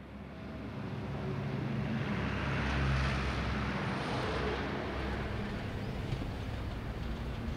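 Outdoor urban background noise: a steady low rumble of distant traffic, fading in at the start and swelling a little about three seconds in.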